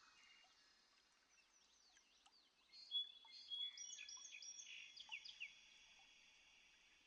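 Birds chirping and calling, faint at first, with a livelier spell of overlapping high whistled notes from about three seconds in until about five and a half seconds.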